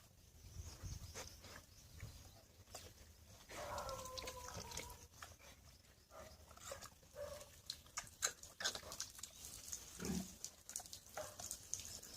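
Pigs calling now and then: a drawn-out higher call about four seconds in and a short low grunt near ten seconds, faint, among scattered small clicks and knocks.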